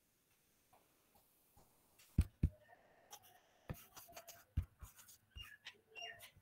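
Faint taps and scratches of a stylus writing by hand on a tablet screen. A pair of sharper taps comes about two seconds in, and scattered lighter taps follow.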